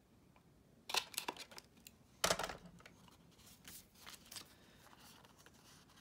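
A Crop-A-Dile hand punch worked on paper and card. A cluster of clicks comes about a second in, then one loud snap a little after two seconds as it punches through, then lighter clicks and handling.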